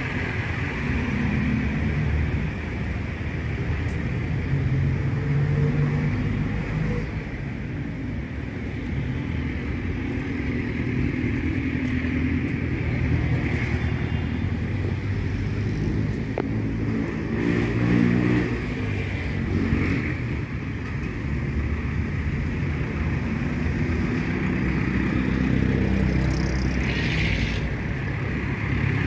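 City street traffic: engines of passing cars, jeepneys and motorcycles make a steady rumble. A louder engine goes by about two-thirds of the way through.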